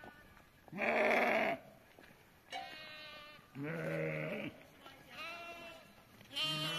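Sheep and goats of a flock bleating, about five separate calls, the loudest about a second in.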